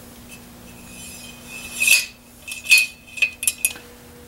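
Cleaning rod working a patch through the bore of a Ruger 10/22 rifle, scraping and clinking against the gun. There is a scrape about two seconds in, then a quick run of sharp clinks with a ringing note.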